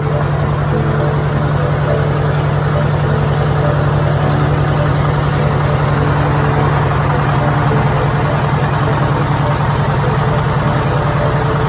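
Wooden river ferry's engine running steadily under way: a constant low drone with a fast, even beat.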